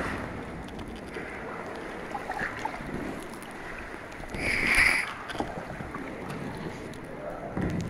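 Kayak paddle dipping and splashing, with water sloshing steadily around the hull. There are two louder splashes, one about halfway through and one at the end.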